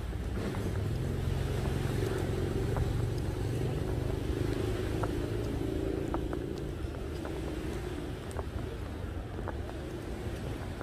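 A motor vehicle's engine running with a steady low rumble, louder through the middle and easing off in the second half, with a few faint clicks.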